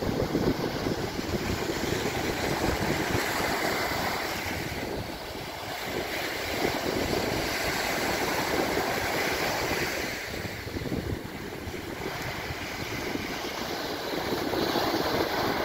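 Sea surf breaking and washing up a sandy beach, swelling and easing every few seconds, with wind buffeting the microphone.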